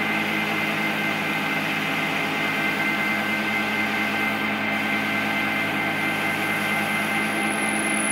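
Engine lathe running steadily, its spindle and gearing humming with a steady high whine, during the grooving tool's final pass in a turned groove.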